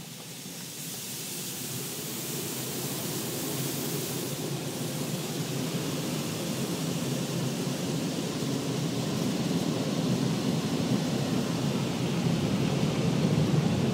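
Automatic car wash spraying water over the car, heard from inside the cabin: a steady rushing hiss that grows gradually louder.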